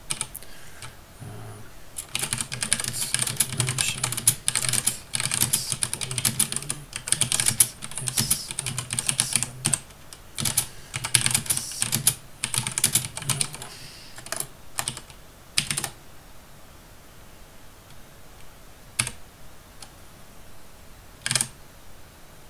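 Computer keyboard typing: a fast, steady run of keystrokes for about fourteen seconds, then, after a pause, a few single key presses near the end.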